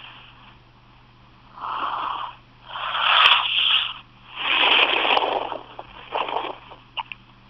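A person with hiccups breathing noisily and wheezily, four breaths about a second long, with a sharp hiccup catch about three seconds in and two quick hiccups close together near the end, heard through a phone's microphone.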